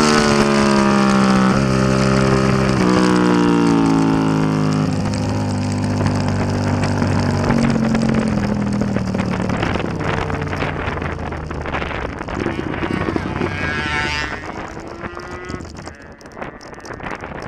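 2004 Suzuki SV650's V-twin engine through an aftermarket Delkevic exhaust, its note falling in steps as the bike slows, then dropping away after about five seconds. A brief rising note comes about fourteen seconds in, and the end is quieter, with wind on the microphone.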